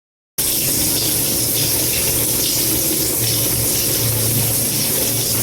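Water rushing steadily into a top-loading washing machine through its water inlet valve, with a steady low hum underneath.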